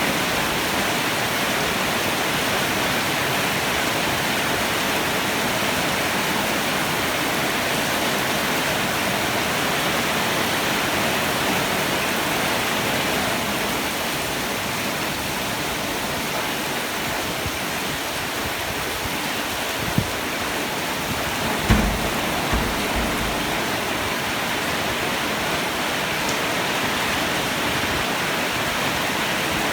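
Heavy rain pouring steadily. There is a sharp knock about 20 seconds in and a brief low thump around 22 seconds.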